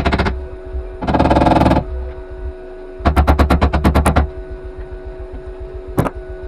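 Flux-core wire welder tacking thin sheet-metal body panels: four short bursts of arc crackle, the longest a rapid stuttering series of about ten pops a second, with a steady hum underneath.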